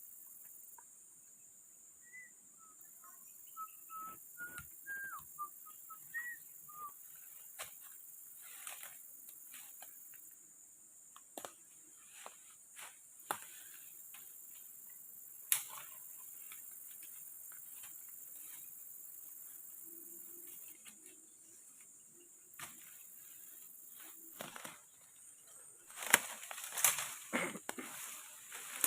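Forest ambience: a steady high insect hum, a few short bird chirps in the first seconds, and scattered clicks and knocks, with a cluster of louder knocks near the end.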